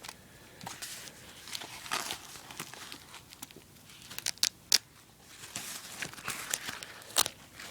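Fabric and webbing straps of a military shoulder holster rustling as they are handled, with a few sharp clicks about halfway through and again near the end.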